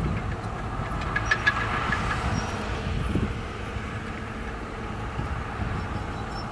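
Heavy diesel earthmoving machinery running steadily, with brief metallic squeaks about a second in.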